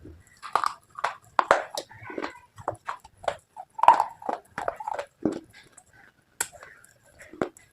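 Crunchy bites and chewing of brittle slate and baked clay pieces: a string of short, sharp, irregular crunches, a few a second, with a brief lull a little past six seconds.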